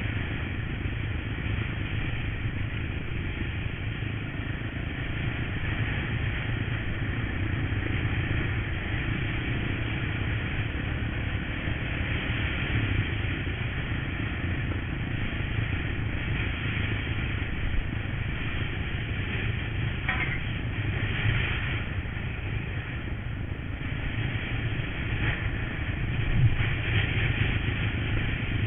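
Honda motorcycle engine running steadily under way on a ride, with a few brief knocks about two-thirds of the way through and near the end.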